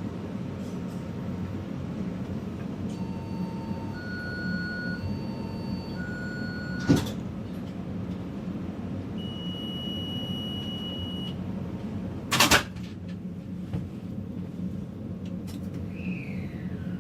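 Taipei Metro train running with a steady low rumble. Short electronic tones sound between about 3 and 6 seconds and again a few seconds later. A sharp click comes near the middle, a brief loud hiss a few seconds after it, and a falling whine near the end.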